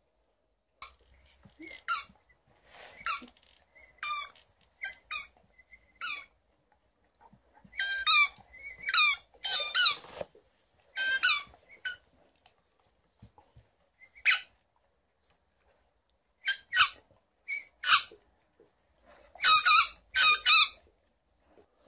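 Squeaky tennis-ball dog toy being squeezed, giving short high-pitched squeaks in irregular clusters, some in quick pairs, with pauses between them.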